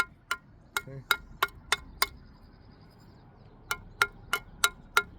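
A brick being chopped to size with quick, sharp strikes of a metal bricklayer's tool, about three a second, each with a short ring. There are two runs of strikes with a pause of a little over a second between them.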